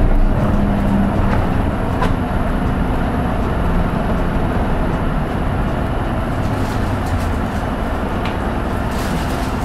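Cabin sound of a Hino Poncho small low-floor bus under way: its diesel engine drones steadily over road rumble. The engine note is strongest at the start, eases off after about a second, and a few faint rattles are heard.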